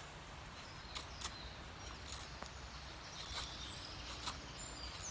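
Faint outdoor background with a handful of light, scattered clicks and snaps.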